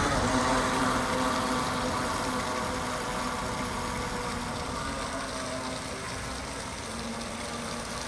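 RC speedboat's motor running at full throttle with a steady whine, slowly fading as the boat speeds away across the pond.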